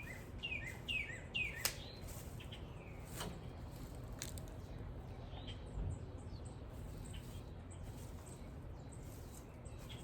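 A songbird giving a quick series of about four down-slurred chirps in the first second and a half, then a few fainter chirps, with several sharp clicks over a low outdoor background.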